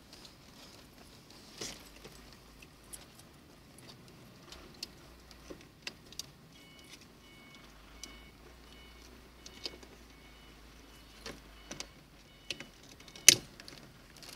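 Car seat belt webbing rustling, with small clicks and jingles from its metal tongue, as it is pulled through a child car seat's plastic belt-guide clip; one sharp, loud click near the end. A faint, evenly repeated beeping sounds through the middle.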